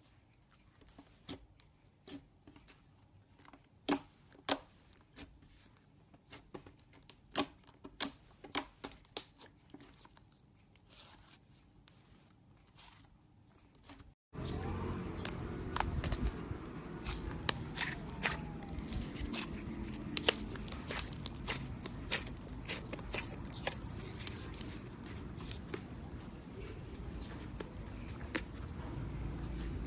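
Slime being squeezed and stretched by hand, giving sharp clicks and crackling pops. About halfway through, it cuts abruptly to a louder take where the clicks sit over a steady rushing background.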